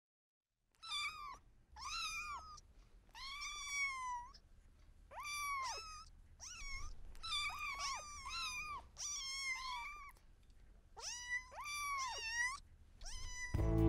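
Kitten mewing over and over in short, high-pitched calls that each rise and fall in pitch, starting about a second in.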